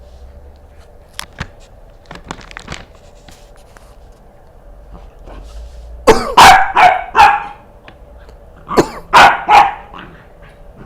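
Welsh Corgi puppy barking in two quick runs: about four sharp barks some six seconds in, then three more a second later.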